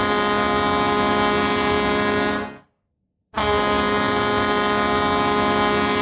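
Winnipeg ICE hockey goal horn: one long, steady air-horn blast that cuts off about two and a half seconds in, then a second long blast after a short gap.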